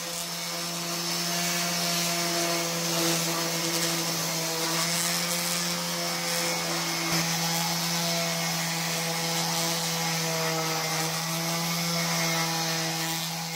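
Electric random orbital sander running steadily against a treated pine 2x4, smoothing the rough sawn face: an even motor hum over the hiss of the pad on the wood.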